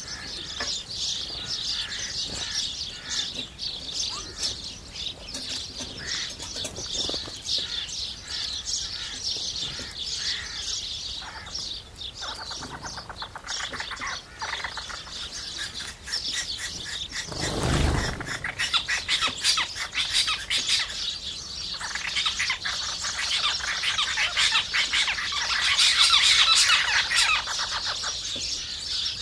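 A flock of house sparrows chirping continuously, many birds at once. A brief burst of noise about eighteen seconds in, and the chirping grows louder and busier toward the end.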